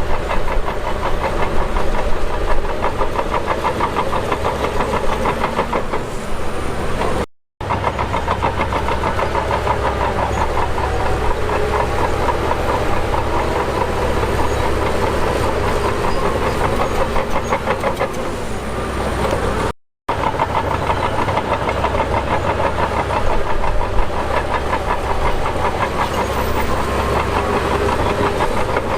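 Heavy diesel construction machinery running steadily under load, with a fast, even clatter. The sound drops out for an instant twice where the footage is cut.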